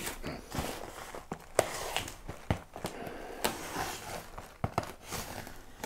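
Utility knife slicing through packing tape along the seam of a cardboard box: irregular scraping and rasping with many short, sharp clicks as the blade and the carton are handled.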